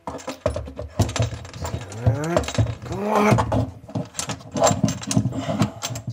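Clicking and rattling of flexible metal-armoured cable and its metal strap as they are handled and pressed up into place, with two short rising pitched sounds about two and three seconds in.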